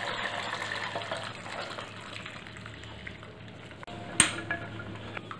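Soaked peanuts and their salted water poured into a steel colander, the water draining through into the pot below and fading to a low trickle after about two seconds. One sharp knock about four seconds in.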